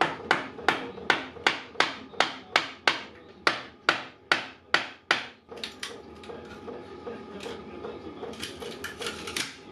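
Wooden mallet striking a chisel again and again in a steady rhythm, about two or three blows a second, to knock apart the old table frame's joinery. The blows stop about five seconds in, and only a few lighter taps follow.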